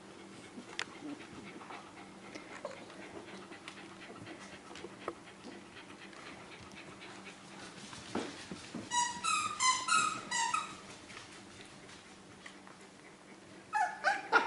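Australian Terrier puppy giving a quick run of about six short, high-pitched squeals about nine seconds in, and two or three more rising squeals near the end. Faint scuffling of paws on the blanket in between.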